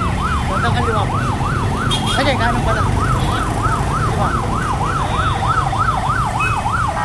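Emergency vehicle siren on a fast yelp, rising and falling about three times a second, which cuts off near the end. A steady low rumble of crowd and traffic sits beneath it, with a brief rising sweep about two seconds in.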